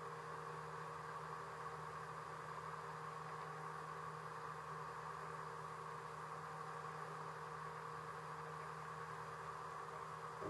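Boat engine running at a steady, unchanging hum, heard from on board while under way, with a faint hiss over it.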